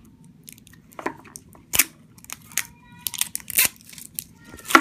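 Hands working a plastic Ninja Turtle Mashems capsule and its wrapper open. It makes irregular sharp crackles and clicks that start about a second in, with the loudest near the end.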